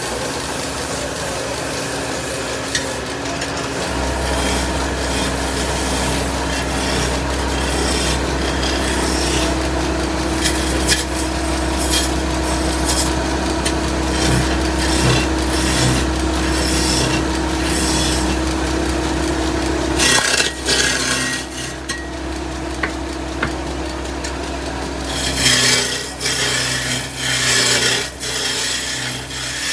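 Wood turning on a belt-driven lathe: a hand-held chisel scraping and cutting into a spinning wooden cot-leg blank, the scraping coming and going, over a steady low hum from the lathe's drive.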